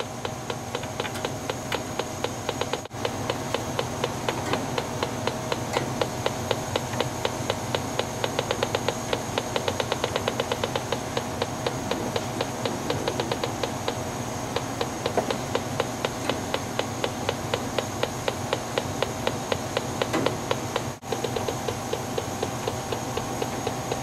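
Electronic combustible-gas leak detector ticking rapidly, several clicks a second, as its probe is swept around the gas valve fittings, over a steady hum. The fast ticking marks gas, which the technician reads as a leak at the pilot tube fitting.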